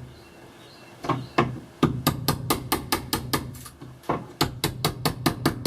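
Rapid, regular strokes of a hand tool working the camper's door-catch area, about four or five a second, in two runs with a short break near the middle.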